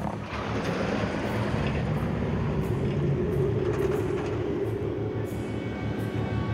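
Road train's diesel engine running steadily under way, a constant drone with road noise.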